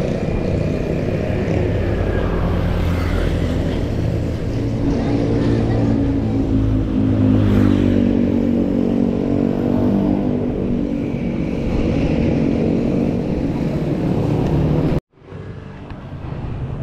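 Wind buffeting the action-camera microphone while riding a bicycle on a road, with a motor vehicle's engine passing close by, loudest in the middle. The noise cuts off suddenly about fifteen seconds in and comes back quieter.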